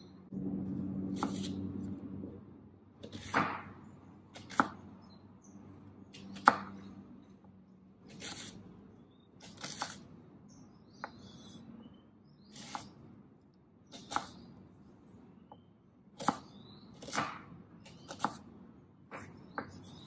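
Kitchen knife cutting shallots on a bamboo cutting board: short, sharp knocks of the blade meeting the wood, irregular, about one every second or so. A low hum runs under the first couple of seconds.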